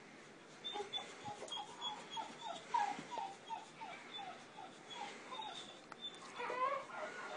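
Boxer dog whining anxiously in a quick string of short, high whimpers, each falling in pitch, about four a second. This is a dog's distress at a crying newborn.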